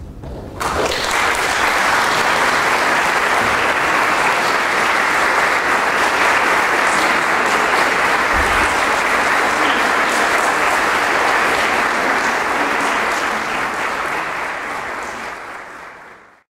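Audience applauding. It starts about half a second in, holds steady, then fades and is cut off just before the end.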